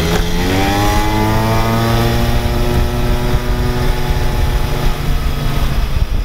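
A golf cart's small engine accelerating: its pitch climbs about half a second in, holds steady as the cart drives along, then eases off near the end. Low wind rumble on the microphone runs underneath.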